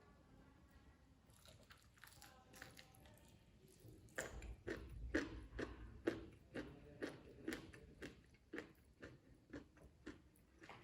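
Close-miked chewing with crisp crunching bites, starting about four seconds in and going on at about two chews a second.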